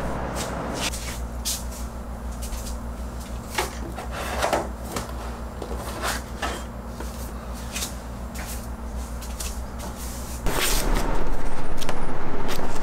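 Scattered light taps and knocks over a steady low hum. About ten seconds in, a loud, dense rustling starts suddenly as the pages of a paperback book are flipped through with a thumb.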